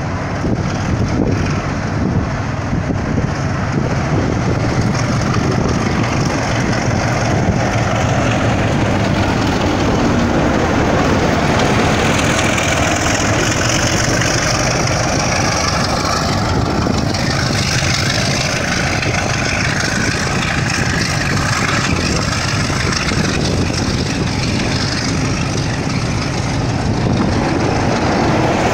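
Class 33 diesel locomotive's engine working hard as a train pulls past at close range, with a high whine sweeping down and back up about halfway through. The passing coaches add a continuous rumble.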